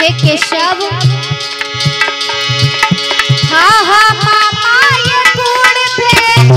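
Devotional music: a harmonium holding steady chords, a rhythm on hand drums with regular deep strokes, and an ornamented, gliding melody line above them.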